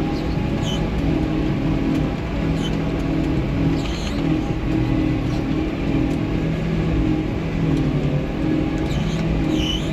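Large diesel engine of heavy farm machinery running steadily under load, with short high squeaks coming every second or two.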